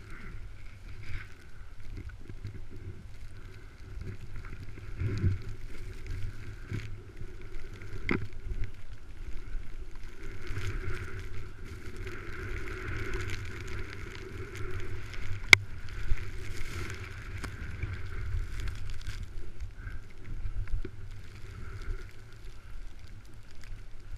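Muffled rushing of wind and snow against a body-worn camera on a skier, with a low rumble, a few knocks and one sharp click a little past the middle.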